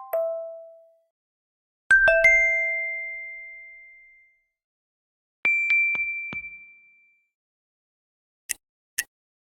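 Samsung Galaxy Watch4 notification and UI sounds played one after another: the fading tail of a chime, a bell-like two-strike chime about two seconds in that rings out slowly, a higher ringing tone with several quick taps about five and a half seconds in, then two short ticks near the end.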